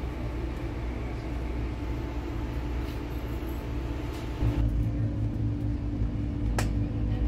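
Steady low rumble with a constant hum, heard from inside a moving vehicle; it gets louder and deeper about four and a half seconds in, and a single brief click sounds near the end.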